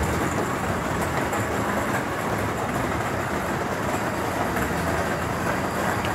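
Steady din of an arcade hall: many game machines running, blending into an even rumble.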